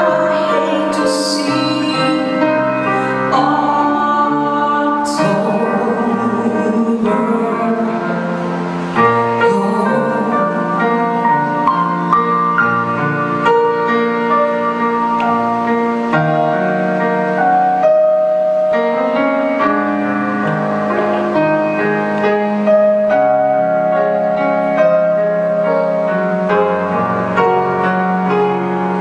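Live music: a woman singing a ballad with piano accompaniment, holding long notes with vibrato.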